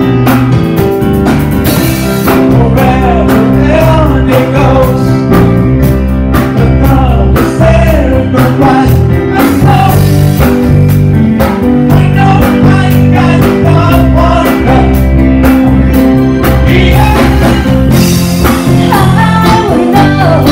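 Live rock band performing a song: male lead vocal over electric guitar and a drum kit, with a steady beat.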